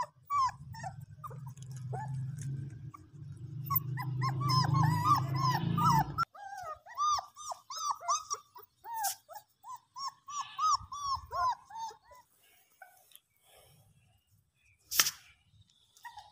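Young puppies whimpering and yelping in many short, high, repeated cries, thickest through the middle. A low steady hum runs under the first six seconds and stops suddenly, and a single sharp knock comes near the end.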